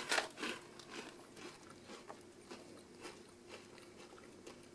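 Close-up chewing of crunchy baked black bean snack crisps (Harvest Snaps). A few louder crunches at first, then softer chewing about twice a second that fades away.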